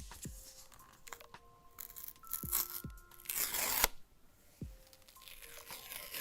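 Background electronic music with a steady kick-drum beat and held synth notes. A short, loud tearing noise comes about three and a half seconds in.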